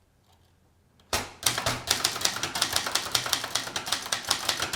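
Keys of a Brother Deluxe 220 manual typewriter being struck in a quick, steady run, about five or six sharp clacks a second, beginning about a second in after a brief silence.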